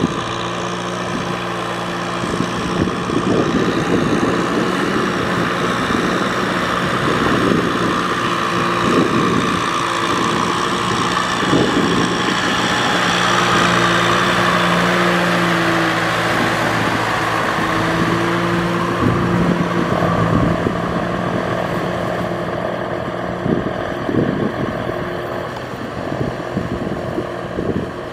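Kubota M6040SU tractor's four-cylinder diesel engine running steadily under load while pulling a rotary cultivator through wet paddy mud. The engine note shifts a little in pitch midway, with occasional short knocks.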